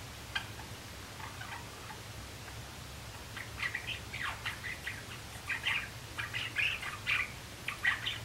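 Young male Java sparrow practising its song: a few soft scattered chips at first, then from about three seconds in a quicker run of louder clicking, chirping notes.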